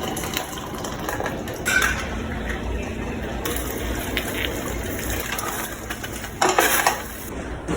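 Kitchen sounds of instant noodles being prepared: running or pouring liquid with utensils clinking against a pot or bowl, and a couple of louder, noisier moments.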